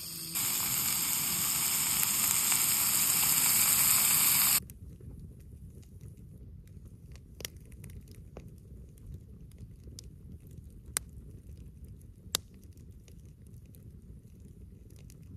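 A loud steady hiss that cuts off abruptly after about four seconds, then a wood campfire burning with a low rustling crackle and a handful of sharp pops.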